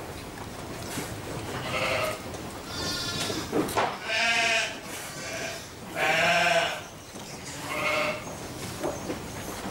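Sheep bleating repeatedly: about five quavering calls of differing pitch, the loudest two around the middle.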